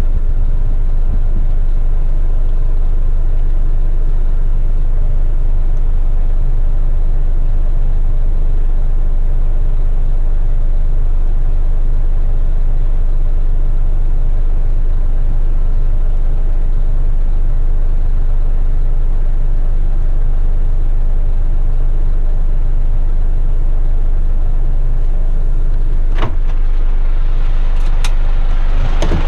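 Diesel engine of an eight-wheeler twin-steer front-lift waste truck running steadily, heard from inside the cab, with a few sharp clicks near the end.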